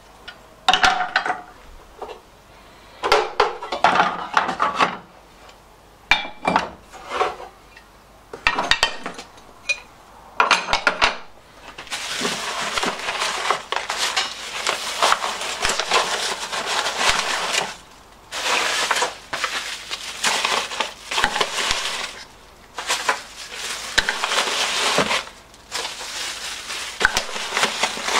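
Metal engine parts clinking and clattering as they are handled and set down. About halfway through, this gives way to a long crinkling rustle of tissue paper and plastic bags being packed into a wooden box.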